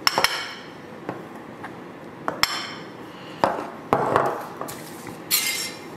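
Metal spoon clinking against a glass flour canister and tapping on a granite countertop while flour is scooped out and spread. A few scattered clinks and knocks, the sharpest about two and a half seconds in, and a short hiss near the end.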